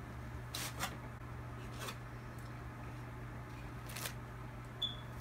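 A person chewing a mouthful of mac and cheese, with a few soft clicks and scrapes from a plastic fork and takeout dishes and a low steady hum underneath.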